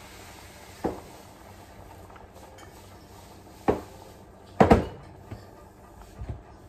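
Kitchen clatter: a few sharp knocks and clanks of kitchenware being handled. The loudest is a double clank about four and a half seconds in.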